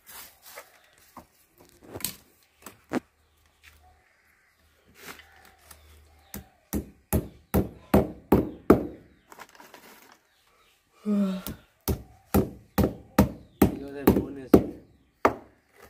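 A hammer striking in runs of quick blows, about three a second, fixing a plastic clip over a white pipe; a man's voice speaks briefly between the runs.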